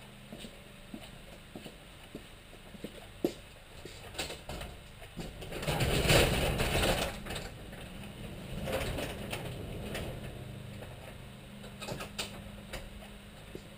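Sectional garage door rolling open, a loud rattling run along its tracks for about two seconds, starting about six seconds in, with scattered knocks before and after.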